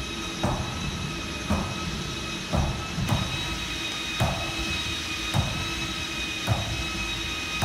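Large roller-ski treadmill running with a steady motor whine of several high tones. Roller-skiing strides knock on the belt about once a second.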